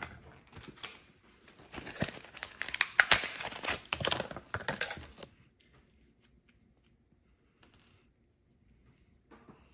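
Blister pack of a thermal paste syringe being torn open by hand: a few seconds of tearing and crinkling, loudest about three seconds in, stopping about five seconds in.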